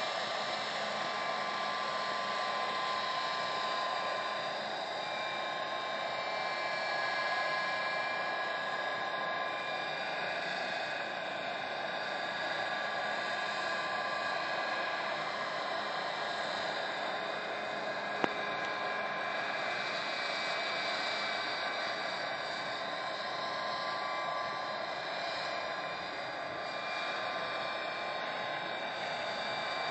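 Small gas turbine engine of a radio-controlled helicopter running in flight: a steady jet whine with several high tones that drift slightly in pitch over a hiss. A single brief click is heard about eighteen seconds in.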